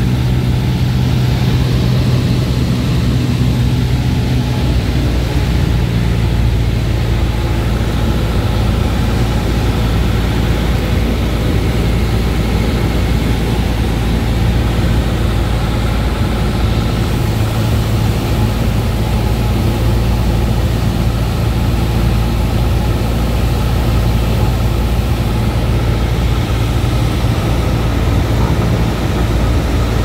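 Steady drone of a Cessna 172's piston engine and propeller heard from inside the cabin on approach, an even hum with a constant low note.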